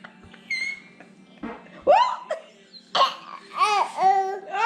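Baby laughing: a few small sounds and a rising squeal, then a run of short high-pitched laughs, about four a second, over the last second and a half.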